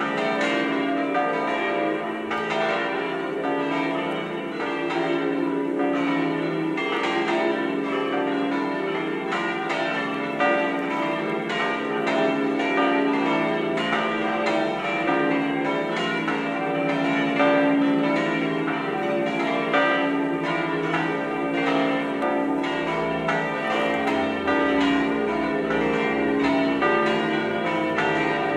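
The seven smaller bronze bells of a cathedral tower, De Poli castings tuned Re3 to Do4, swinging full-circle with flying clappers and ringing together in a continuous, overlapping peal. The strikes come thick and unbroken, with the bells' lingering hum underneath.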